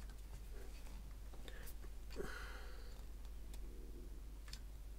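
Faint, scattered clicks of small metal parts as an M8 locking nut is turned by hand on a speaker isolator's threaded bolt, with a soft exhaled breath about two seconds in.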